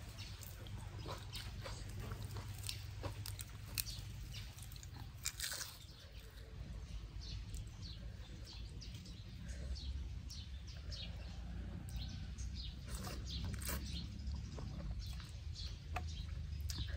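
Close mouth sounds of a person chewing and eating rice noodles and blood cockles in spicy papaya salad, with many short wet clicks and smacks scattered throughout, over a steady low hum.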